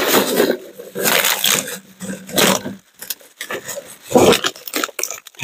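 Large black plastic garbage bag full of plastic bottles rustling and crinkling in irregular bursts as it is handled and its top gathered together to be tied.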